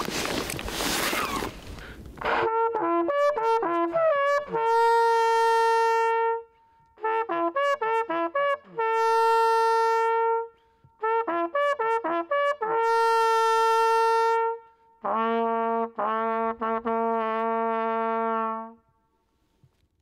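Brass hunting horn blowing a signal call. There are three phrases of quick rising notes, each ending in a long held note. A lower phrase of rapidly repeated notes follows and cuts off near the end. A short rustle of handling comes before the first note.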